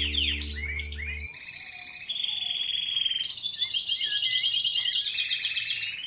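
Canary song: a continuous run of rapid trills, each held at one pitch before switching to a higher or lower one. A low sustained music chord underneath ends about a second in.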